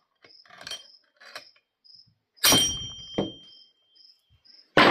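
Hammer blows on a screwdriver set against a chainsaw's reverse-thread clutch to drive it tight: a hard metallic clang with a brief ring about two and a half seconds in, a lighter knock just after, and another strike near the end. Crickets chirp steadily, about twice a second, in the background.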